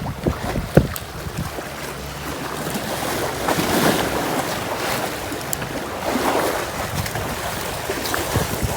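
Sea waves washing in along the shore, swelling twice, about halfway through and again a little later, with wind buffeting the microphone. A few sharp knocks come in the first second.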